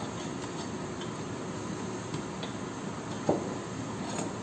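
A single short knock as automatic-transmission parts are handled on the workbench during disassembly, about three seconds in, over steady background room noise.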